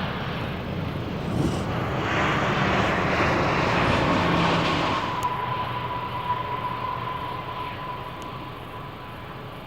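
Jet airliner engines running as the aircraft passes on the ground, swelling to a peak a few seconds in and then fading, leaving a steady whine.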